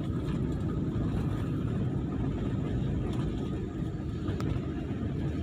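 Steady low rumble of a moving vehicle and its tyres on a concrete road, heard from on board.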